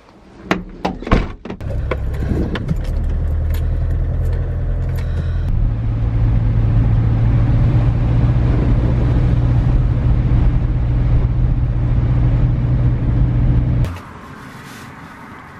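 A few knocks and clicks as someone settles into a van's driver's seat, then the van's engine running steadily from about two seconds in, its note stepping up around five seconds in as it drives. The engine sound cuts off abruptly near the end.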